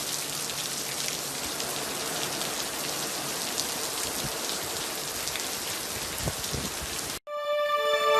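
Steady rain falling, an even hiss with the patter of scattered drops. It cuts off abruptly about seven seconds in, and electronic music starts.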